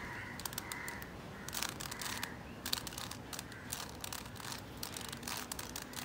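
Stickerless plastic 3x3 Rubik's cube being turned by hand: quick, irregular clicking and clacking as its layers are rotated.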